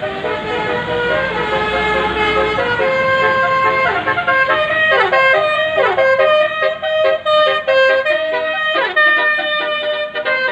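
Bus telolet horn playing a basuri melody: a loud run of stepped multi-tone horn notes, broken by quick falling pitch sweeps about halfway through and again near the end.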